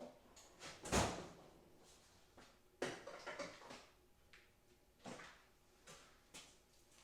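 Rummaging for a pair of wire cutters: a sharp knock about a second in, then a rattling clatter and a few lighter knocks of tools and objects being handled.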